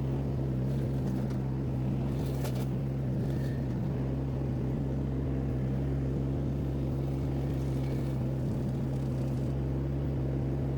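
HK380 mini skid steer loader's engine and hydraulics running steadily, driving its forestry mulcher attachment, with a few faint clicks about two seconds in.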